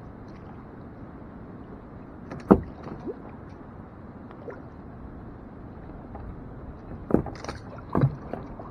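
Small plastic boat on the water: a steady low wash of water against the hull, broken by a few sharp knocks and splashes. The loudest comes about two and a half seconds in, and two more come near the end.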